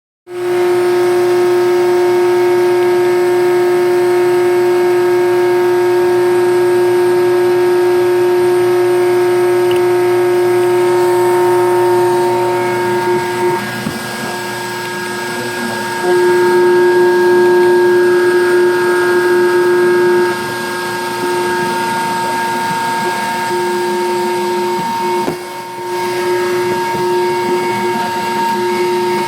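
Mini CNC lathe running: a steady motor whine with a row of higher tones. It drops in level a little under halfway through, comes back louder for a few seconds, then settles lower.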